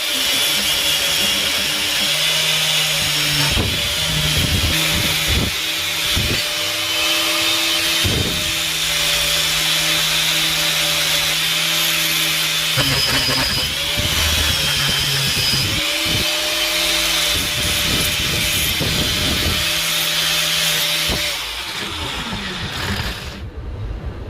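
Electric power tool running while abrading an old iron spoon, a steady motor hum under a gritty hiss. The motor dips briefly several times, then winds down about 22 seconds in.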